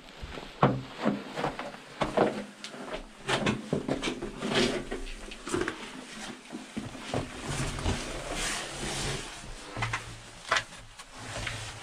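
Footsteps at a walking pace, about two a second, heard as sharp scuffs and knocks over a rustling background, with a faint low hum coming in in the second half.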